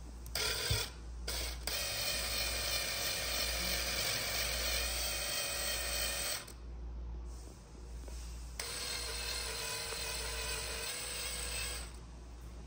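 Cordless DeWalt drill spinning a chamfer bit in the screw holes of a machined metal box. There are a couple of short bursts at first, then two steady runs of several seconds each, with a pause of about two seconds between them.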